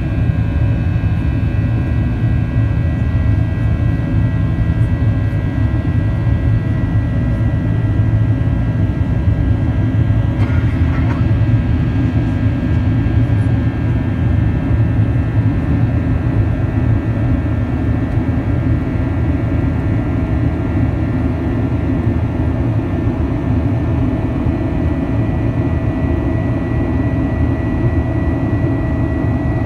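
Cabin noise of a Boeing 737-900ER in the climb after takeoff: the CFM56-7B turbofans give a steady low rumble with a thin steady whine above it.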